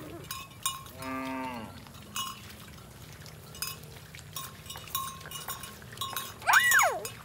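Herd of cattle on the move with calves bawling: a short call about a second in and a louder call that rises and falls near the end, over the repeated clink of cowbells.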